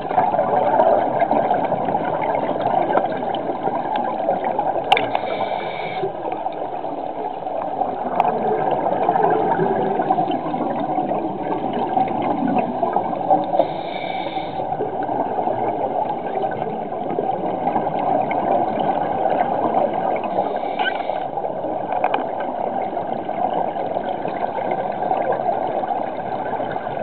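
Underwater scuba-dive sound through a camera housing: a steady, muffled rush of water and bubbling, with three short hisses about eight seconds apart from a diver's regulator breathing.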